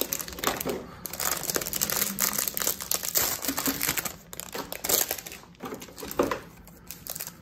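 Plastic and foil trading-card pack wrappers crinkling and tearing as they are unwrapped and handled. The crackling is densest in the first half and then comes in scattered bursts.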